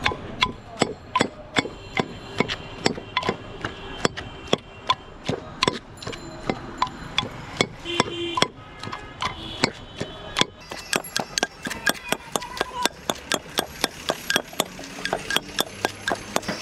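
Rapid, rhythmic chopping of raw fruit with a blade on a board, about three strokes a second and quickening to four or five a second about ten seconds in.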